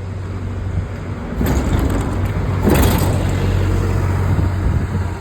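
Bus engine running close by with a steady low hum, with two short bursts of hiss about one and a half and three seconds in.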